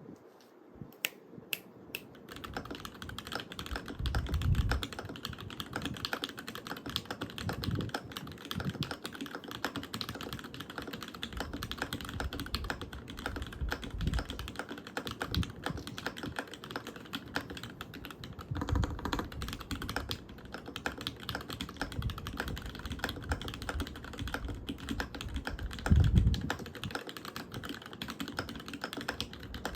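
Typing on a custom Alice-layout mechanical keyboard with a copper plate, GMK keycaps and lubed, filmed Cherry Vintage Black linear switches. A few single keystrokes, then steady fast typing with some heavier, deeper key thocks mixed in.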